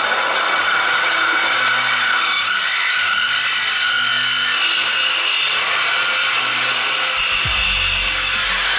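Cordless reciprocating saw cutting through the Mustang's steel exhaust pipe to remove the resonator, running steadily with a high-pitched rasping whine.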